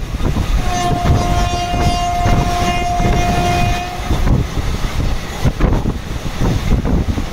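A train horn sounds one long steady note for about three and a half seconds, over the continuous rumble and irregular clatter of a train running on the rails.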